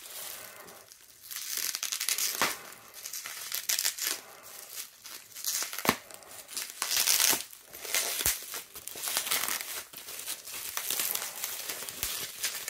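Plastic bubble wrap crinkling and rustling as it is handled and peeled off a stack of comic books, with four sharp snaps along the way.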